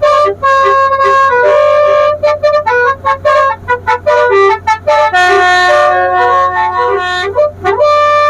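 Telolet basuri musical horn on a tourist boat playing a quick tune of short reedy notes, with one long held note a little past the middle. It cuts off suddenly at the end, leaving the boat's engine hum underneath.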